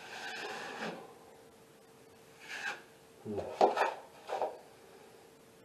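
Wide metal drywall knife scraping over joint compound on a ceiling: one longer stroke at the start, then a few short scrapes with a sharper clack in the middle, the loudest just past halfway.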